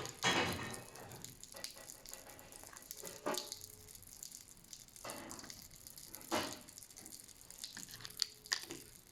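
Popping candy crackling and fizzing in a novelty candy egg kit, a fine continuous sizzle like an egg frying in a pan. A few louder brief rustles break in.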